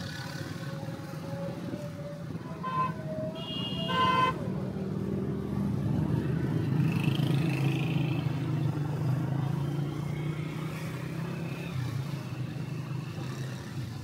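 Motorbike engine running steadily while riding in street traffic. A vehicle horn honks twice about three and four seconds in, and the second, longer blast is the loudest sound.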